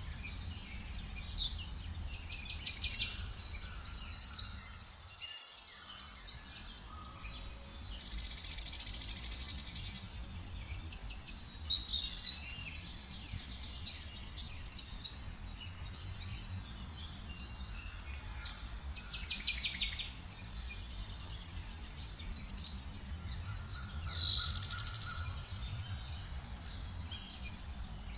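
Several songbirds chirping, trilling and whistling at once in quick high-pitched phrases, over a steady low rumble of background noise that briefly cuts out about five seconds in.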